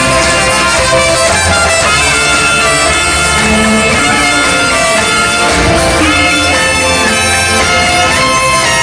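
Band music in an instrumental passage with no singing: a sustained melody line holding long notes over a steady bass and drum backing.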